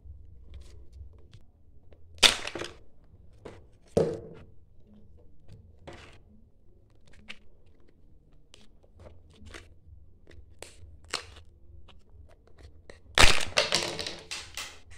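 Plastic Kinder Joy egg handled with scattered clicks and crinkles, with two sharp cracks a couple of seconds apart. Near the end the foil seal is peeled back from the plastic half with a loud tearing crackle.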